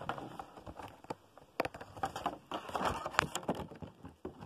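Scattered clicks, taps and light rustling as a boxed toy's cardboard and plastic packaging is handled, with sharper clicks about one and a half and three seconds in.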